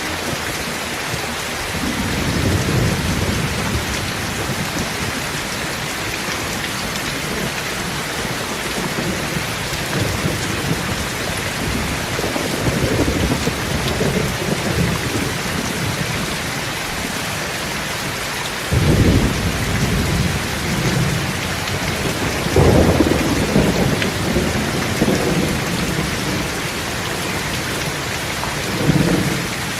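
Steady rain falling, with low rolling rumbles that swell several times; the strongest come about 19 and 23 seconds in.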